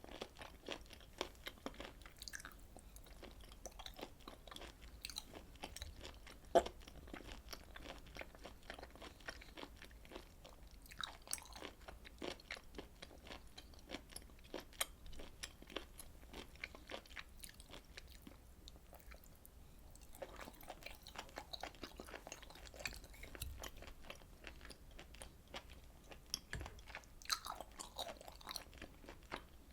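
Close-miked chewing of grilled beef and pork intestines: a steady run of small, wet, sticky clicks and bites, with one sharper click about six and a half seconds in.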